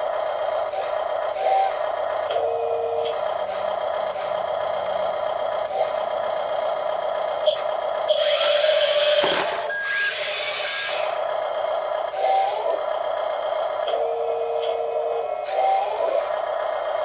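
Small electric motors of a Double E 1/14-scale E594 remote-control skid steer whining steadily, with short whirs and a loud scraping burst from about eight to eleven seconds in.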